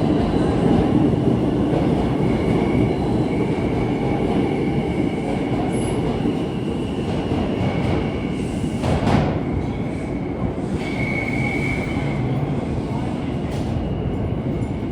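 New York City subway train running on the rails, a steady rumble with high steel-wheel squeals that come and go. A single sharp knock sounds about nine seconds in.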